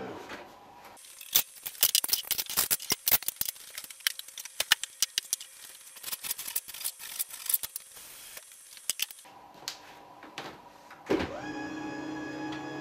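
Crockery, cups and jars clinking and clattering as they are set down on a tabletop, a rapid run of sharp clicks. Near the end, the electric lift motor of a height-adjustable kitchen island starts up with a brief rising whine and then hums steadily as it moves the table.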